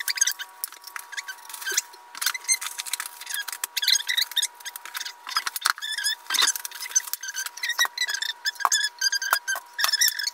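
Paper and plastic packaging rustling and crinkling in quick, irregular handfuls, with little squeaks, as scooter parts are unwrapped.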